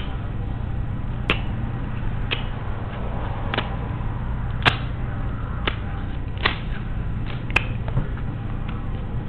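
About ten short, sharp clicks, roughly one a second and unevenly spaced, over a steady low hum.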